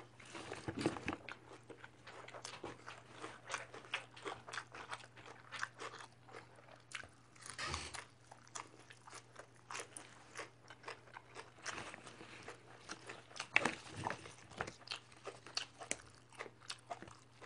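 A person chewing fresh raw greens and herbs close to the microphone: a run of irregular crisp crunches, with a louder crunch about three-quarters of the way through.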